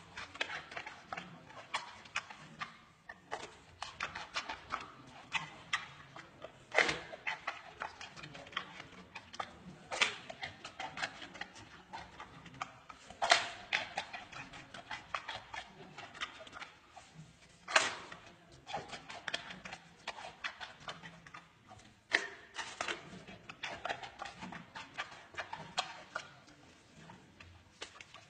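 Giant panda chewing and crunching bamboo: a quick, irregular run of crisp cracks and crunches, with several louder snaps as it bites through the stalk.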